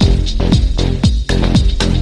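Upbeat electronic dance background music with a steady four-to-the-floor drum beat and a bass line.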